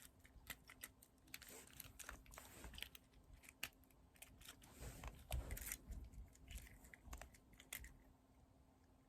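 Faint, irregular plastic clicking of a Rubik's cube as its layers are turned, with a few soft handling knocks near the middle.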